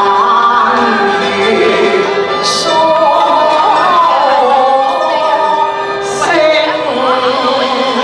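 A woman singing a Cantonese opera song (yueju qu) in a sliding, ornamented vocal line, accompanied by a small Chinese instrumental ensemble.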